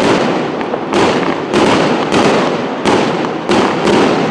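Fireworks display: a quick run of shell bursts, a sharp bang roughly every half second to a second, over dense crackling.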